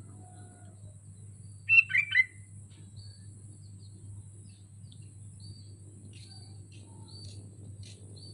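Sooty-headed bulbul giving a short, loud burst of three or so quick chirping notes about two seconds in, followed by scattered faint, short high chirps. A steady low hum runs underneath.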